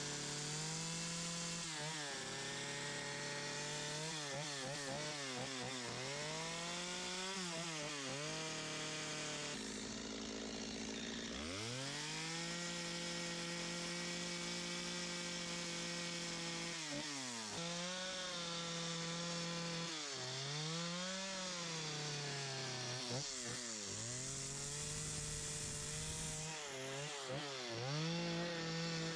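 Stihl MS250 two-stroke chainsaw with a quarter-pitch carving chain, cutting and gouging wood. It holds high revs in long stretches and drops off and climbs back again and again as the saw is eased in and out of the cut.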